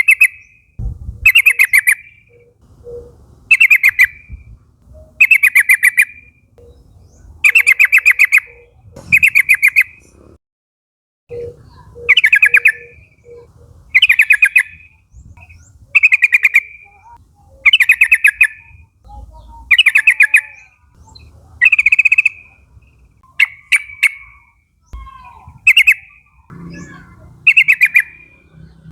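Yellow-vented bulbul (trucukan) singing a short, rapid, chattering phrase over and over, about one every two seconds, each phrase under a second long.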